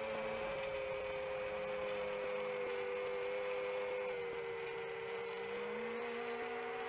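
Long-range FPV quadcopter's motors and propellers whirring steadily in flight. Several close tones hold a steady hum, drifting slightly in pitch as the throttle changes.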